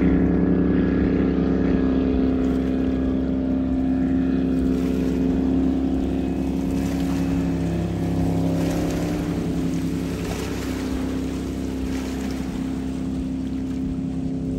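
Motorboat engine running steadily close by, a low drone whose pitch dips slightly about halfway through and which eases a little toward the end.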